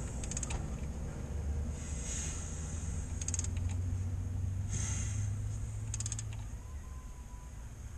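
Mini Cooper S crankshaft turned by hand with a ratchet wrench, oil pan off: a creaking, rasping noise on each pull, with a quick run of ratchet clicks on each back-stroke, repeating every one and a half seconds or so. The mechanic says this noise should not be there, that only the air of compression should be heard. He is hunting a knock that he suspects is a worn piston pin or bearing shells.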